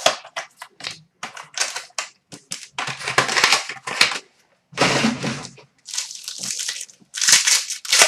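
Plastic wrapper crinkling and tearing in a run of irregular crackles as a sealed hockey card pack is opened.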